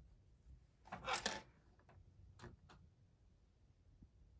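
Quiet room with a brief rustle about a second in, followed by a couple of faint clicks.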